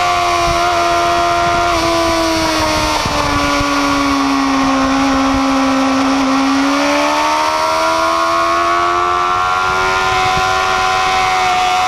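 Kawasaki ZX6R inline-four sportbike engine on track, heard from the rider's seat: its note falls and holds low as the throttle is eased through a bend, then climbs again as the bike drives out of it.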